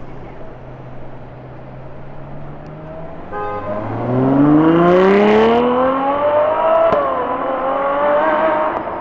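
Ferrari 812's naturally aspirated V12 pulling away hard from a low rumble: the engine note climbs steadily, dips briefly at an upshift about seven seconds in, then climbs again.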